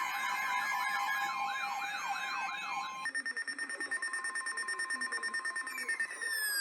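Several electronic sirens wailing and yelping over one another. About three seconds in they cut to a single high tone pulsing rapidly, which starts to slide down in pitch near the end.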